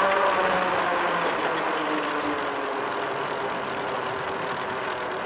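An engine running, its pitch sinking over the first couple of seconds and then settling into a steady idle, laid over the opening title card as a sound effect. It is loudest at the start.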